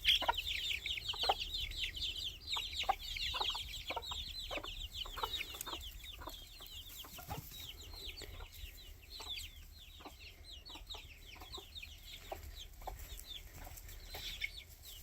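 Young chicks, close to a month old, peeping constantly in short falling notes, while a mother hen clucks repeatedly beneath them. The peeping is loudest at the start and thins out over the second half.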